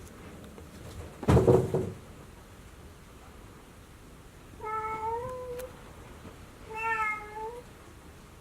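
A domestic cat meowing twice, two drawn-out meows about two seconds apart, each rising slightly at the end. A louder, brief noise about a second in comes before them.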